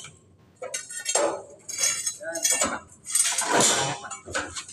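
Irregular clanking and clinking of steel pipes used as pry bars, knocking against each other, the concrete and the crate while a heavy machine is levered onto log rollers.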